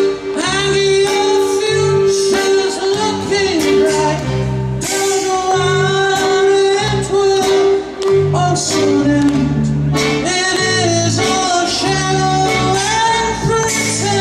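Live music from an accordion and a plucked double bass. A held accordion note and a wavering high melody run over low bass notes that change about every half second.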